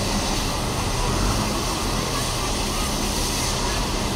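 Steady hiss of escaping steam from standing steam locomotives, including a Prussian P8, waiting to depart.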